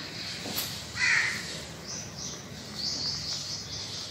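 A marker squeaking on a whiteboard in a series of short strokes as a word is written, through the second half. About a second in there is a brief, louder harsh sound.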